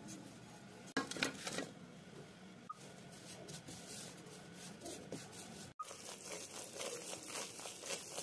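Silicone spatula stirring and scraping in a nonstick wok as ghee and then jaggery melt, in quick runs of strokes. The sound cuts out for a moment a little before the six-second mark, then the stirring carries on.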